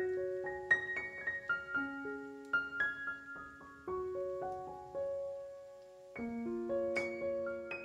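Background solo piano music: a slow melody of struck notes that ring and fade, with a brief lull just before a new phrase about six seconds in.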